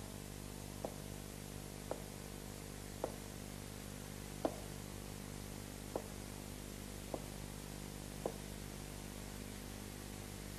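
Faint steady hum and hiss, with seven soft, short knocks roughly once a second that stop about eight seconds in.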